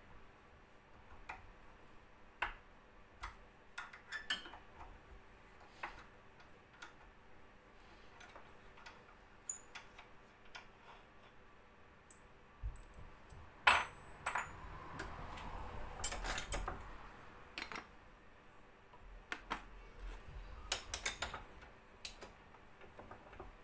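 Small metal clicks and clinks of an Allen key and brass gas fittings being worked and handled at a steel bench vise, scattered through. A louder spell of clatter and scraping comes about two-thirds of the way through.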